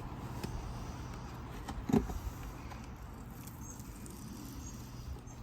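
Cardboard box being opened and its contents handled: rustling and shuffling, with faint clicks and one louder knock about two seconds in.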